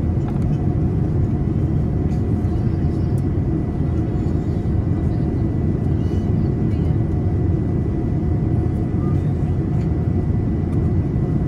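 Steady cabin noise inside a Boeing 787 in flight: an even low roar of engines and airflow with a faint steady high whine over it, as the airliner descends toward landing.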